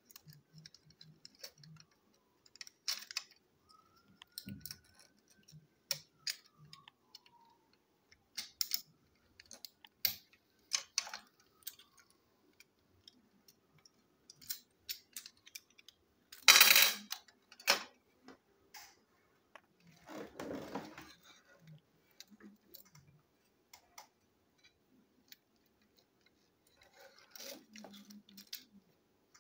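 Plastic parts and tiny screws of a toy train being handled on a tabletop during disassembly: scattered light clicks and taps, with one sharper clatter about halfway through and a short scrape a few seconds after it.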